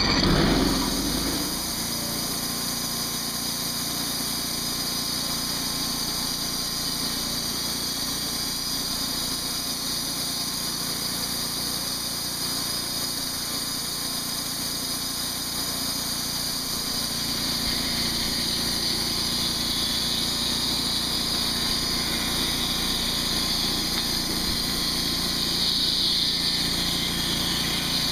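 Engine of a portable manual push band sawmill running steadily as the band blade cuts through a red cedar log. It settles a little quieter about a second in and grows slightly louder and brighter in the second half.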